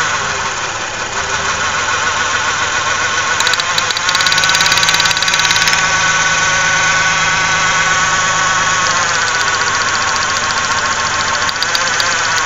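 1995 Ford Ranger's 3.0L Vulcan V6 idling, a little louder for a couple of seconds about four seconds in. The engine is under suspicion of a misfire and heavy vibration.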